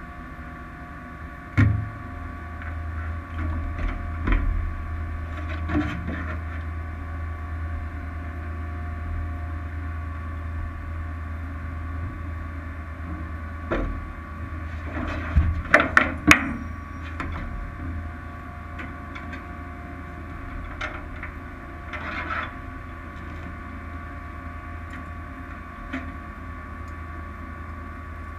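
A steady low hum with scattered knocks and clunks of cockpit handling, as a pilot settles into a small aircraft cockpit and works at the panel. The strongest knock comes about a second and a half in, and a quick cluster of sharp knocks comes about halfway through.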